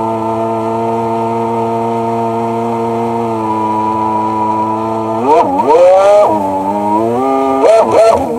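Sea-Doo personal watercraft engine running steadily at a low cruise. About five seconds in, and again near the end, it is revved up and down in quick swings of pitch.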